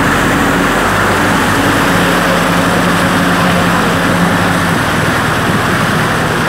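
Kubota M6040 SU tractor's diesel engine running steadily under load as the tractor drives, heard close up from on board, with the engine note shifting slightly a couple of times.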